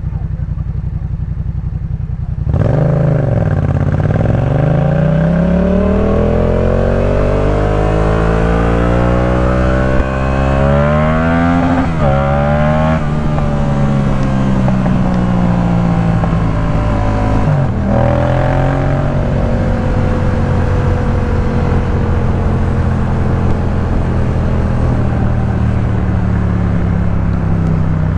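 Yamaha MT-07's parallel-twin engine through a Jeskap K4 full exhaust: running steadily at first, then getting louder about two and a half seconds in and revving up steadily, with a short drop in pitch near the middle and another about two-thirds through, as if changing gear, before holding a steady note.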